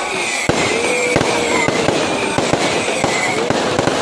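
Fireworks exploding: a sharp bang about half a second in, then a rapid, irregular string of bangs and pops.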